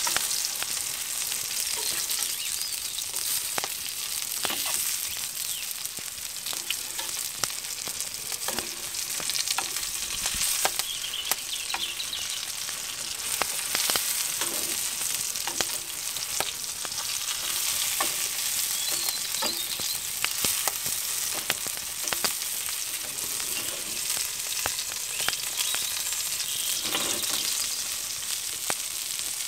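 Apple fritters frying in hot oil in a frying pan over an open wood fire: a steady sizzle with frequent crackling pops, and a few scrapes of a metal spatula in the pan as they are turned.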